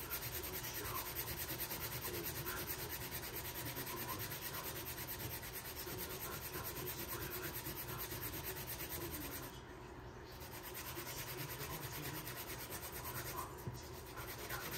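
Rapid back-and-forth scrubbing of a small plastic interior trim piece against a towel pad, a continuous scratchy rubbing that lets up briefly twice in the second half.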